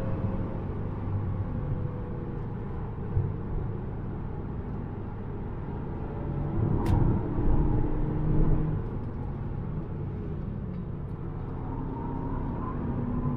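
Engine and road noise inside the cabin of a VW Golf GTI TCR at track speed, its turbocharged 2.0-litre four-cylinder note dropping as the car slows for a bend. There is a sharp click about seven seconds in, with the engine and tyres louder for a couple of seconds around it.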